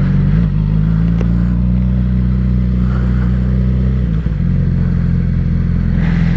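Yamaha R6's inline-four engine idling steadily, with a brief change in pitch about four seconds in.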